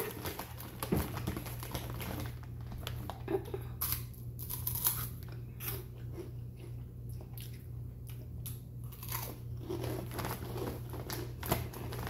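Hot Cheetos being bitten and chewed: a run of short, irregular crunches over a low steady hum.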